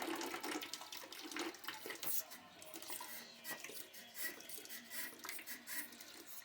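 Rusty water trickling and splashing out of a gas steam boiler's sight-glass pipe into a bucket as the rust blockage is brushed out, with irregular small clicks and scrapes.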